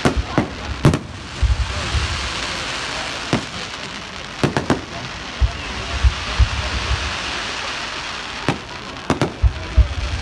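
Aerial fireworks display going off: irregular sharp bangs and low thuds, several close together near the start, a pair about halfway through and a cluster near the end, over a steady crackling haze.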